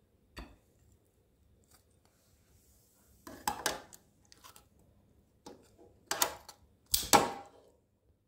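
Kitchen handling sounds: short clattering knocks of cookware and utensils, a cluster about three seconds in and the loudest pair near the end.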